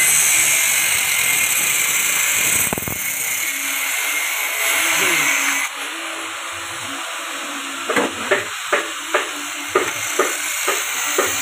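Electric-motor-driven JG 25 grass chopper running. For the first half there is a loud rushing hiss as grass stalks go through the blades. It then cuts off, leaving the machine running lighter with a steady hum. From about eight seconds in comes a run of sharp knocks, a few a second.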